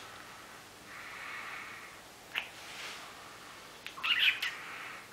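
Kissing: a short lip smack about two and a half seconds in, then a louder, longer squeaky kiss about four seconds in.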